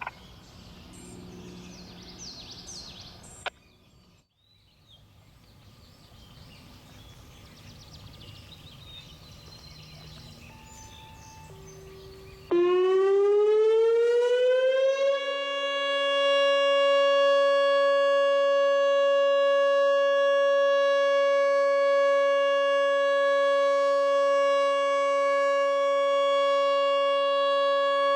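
After about twelve seconds of low background, a Whelen 2910 electronic outdoor warning siren starts suddenly and sweeps up in pitch for about two seconds. It then holds a loud, steady tone for the rest, sounding in its scheduled test.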